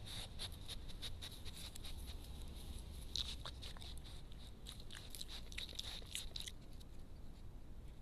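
Badger cub scratching and brushing against the trail camera right at the microphone: a quick, irregular run of scratchy clicks and rustles that stops about six and a half seconds in.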